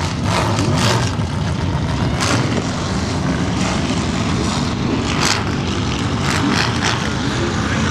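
A big-tyred mud-bog truck's engine running steadily as it drives slowly across a field, with short bursts of noise mixed in.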